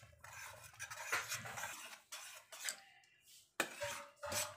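Metal spatula scraping and clinking against a heavy-bottomed stainless steel pan while stirring thick banana paste into ghee, with several sharp clinks along the way.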